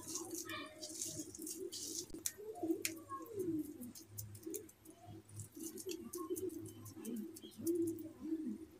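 Small clicks and soft squishing as fingers press a sticky ghee-moistened mixture into a plastic modak mould and open it. A faint low wavering cooing carries on in the background.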